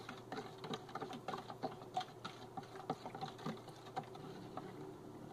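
A utensil stirring sugar dissolved in hot water inside a plastic measuring jug: faint, quick, irregular scraping and clicking against the jug's sides.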